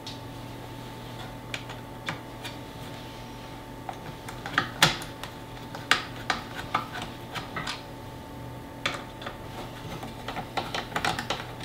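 Small Phillips screwdriver backing screws out of the plastic base of a 5G home internet gateway: scattered light clicks and ticks of the bit and screws, a few sharper ones about five and six seconds in and a cluster near the end, over a steady low hum.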